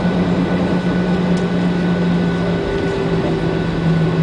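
Cabin noise of a Boeing 737-800 taxiing, heard from a window seat over the wing: the CFM56-7B engines at low thrust give a steady loud hum with a low drone and a faint high whine. The drone's pitch wavers and a second, higher drone joins a little past halfway.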